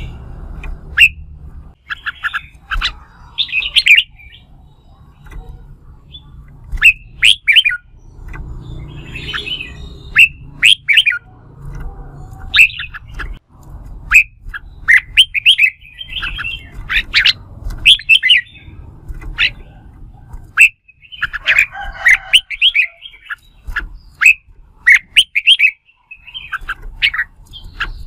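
Red-whiskered bulbuls singing challenge song: loud, quick bursts of short chirping phrases, repeated after brief pauses, from birds worked up to sing against each other.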